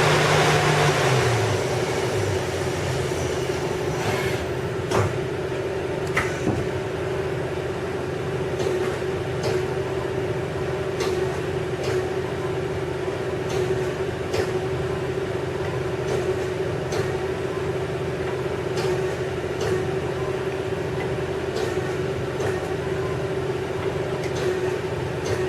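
CNC lathe running with a steady machine hum, with scattered sharp clicks and knocks as the bar puller grips and pulls bar stock through the spindle.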